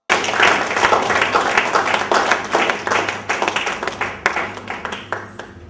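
Audience applause: many people clapping. It starts abruptly and fades away near the end.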